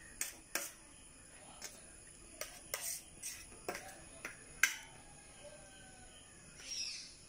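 Steel spoon clicking and scraping against a steel plate as passion fruit pulp is scooped out of the fruit halves: irregular sharp clicks, the loudest about four and a half seconds in.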